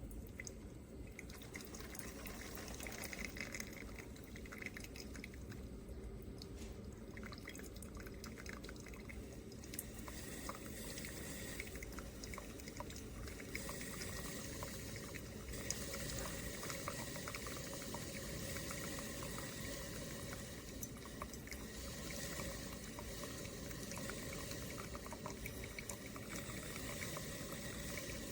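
Water pouring and trickling steadily into a container, with small drips and clicks.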